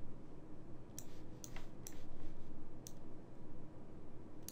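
Computer mouse clicking: about five short, sharp clicks at uneven intervals, over a faint steady background hum.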